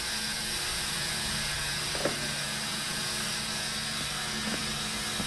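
Steady mechanical whir with a low hum, with a few faint clicks of small metal hose clamps being sorted by hand, about two seconds in and again near the end.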